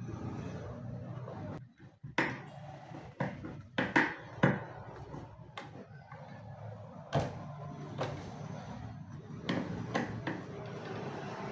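Irregular knocks and clicks of a wooden cabinet door and its hinge being handled while the door's fit is adjusted, the loudest knock about seven seconds in.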